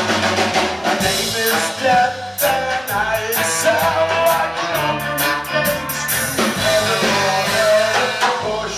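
Live rock band playing loudly: drum kit, bass and electric guitar under fiddle and saxophone lines.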